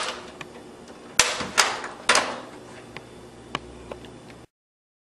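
Plastic retaining clips of an Xbox 360 case snapping loose as the two shell halves are pried apart: a few sharp clicks and cracks, the loudest three coming about a second in and just after, with lighter ticks between. The sound cuts off abruptly near the end.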